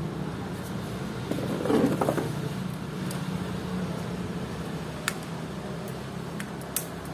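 A small plastic folding drone is handled and its arms opened, with a rustle about two seconds in and two sharp clicks about five and seven seconds in, over a steady low engine-like hum.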